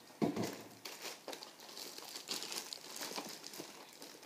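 Clear plastic wrapping on a headphone box crinkling and rustling as the box is handled and unwrapped, with a thump about a quarter second in.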